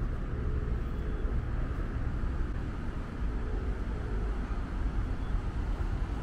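Steady rumble of distant road traffic, with no single sound standing out.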